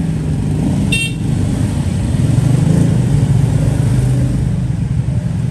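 Road traffic with vehicle engines running close by as a steady low rumble, and a brief high ringing tone about a second in.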